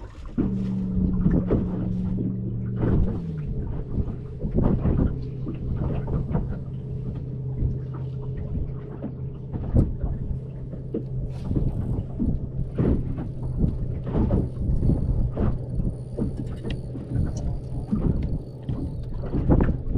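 Boat motor coming on about half a second in and running with a steady hum, its pitch dropping and settling about three seconds in. Frequent irregular knocks and buffets sound over it.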